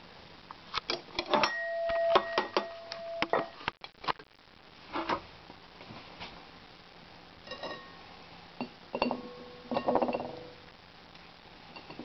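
A metal spoon clinking and scraping against a frying pan and a ceramic bowl, in scattered knocks. Twice a knock leaves the crockery ringing briefly, once about a second and a half in and again near the end.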